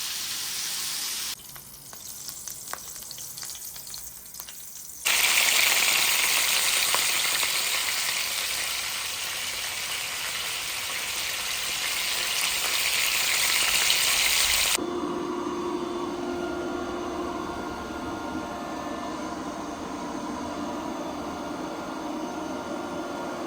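Pieces of fish frying in hot oil in a pan, sizzling loudly and steadily, with a quieter stretch of small clicks early on. About fifteen seconds in, it cuts abruptly to a steady hum with a low tone.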